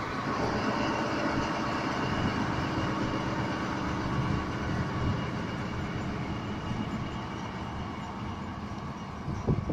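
Diesel locomotive's engine running with a steady drone as it pulls away, slowly fading as it moves off.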